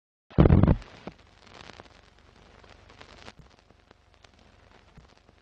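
A loud low hit, then the crackle and scattered pops of old film, fading to fainter clicks about halfway through: the sound effect of a vintage film-countdown leader.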